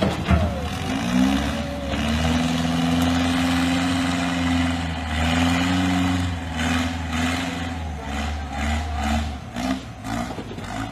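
Heavy vehicle engine running and revving. Its pitch rises about a second in and holds steady, then comes in short repeated surges for the last few seconds.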